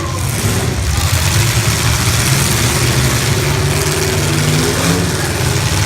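Full-size stock cars' engines running in a steady low drone, with one engine's pitch rising and falling about four seconds in.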